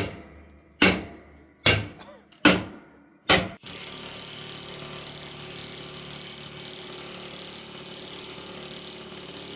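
Five sharp metal strikes about a second apart, typical of hammering on a riding mower wheel rim rusted onto its axle. A steady mechanical running noise starts abruptly a little over halfway through and holds level.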